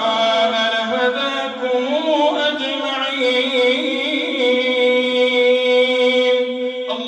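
A man's voice chanting Quranic recitation (tilawah) in a melodic style. The line winds at first, then settles into one long held note, and a new phrase begins near the end.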